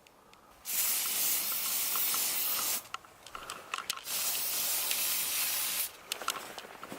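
Two hissing bursts of about two seconds each, sharply switched on and off like gas or spray released from a pressurised can, with small clicks and crackles in the gap between them.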